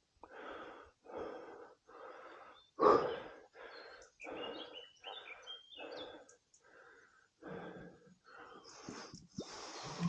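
A man breathing hard, out of breath from climbing: a steady run of quick, regular breaths, about one every three-quarters of a second, with one louder breath about three seconds in.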